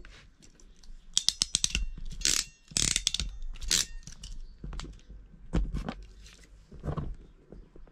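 Hand crimping tool squeezing a connection terminal onto two red wires: a quick run of clicks about a second in, then several short louder rasping clicks as the crimp is closed, and a few dull knocks as the jaws are opened and handled.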